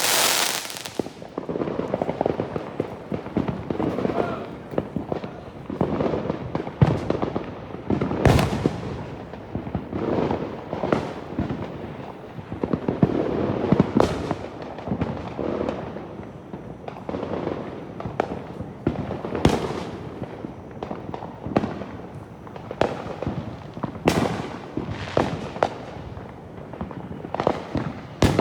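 Fireworks going off continuously: many sharp bangs, a few much louder than the rest, over a steady rumble of other explosions.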